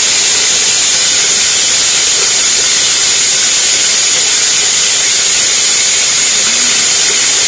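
Homemade cracked-corn mill driven by a salvaged compressor motor, running: a loud, steady, hiss-like rushing noise, strongest in the treble, that does not change.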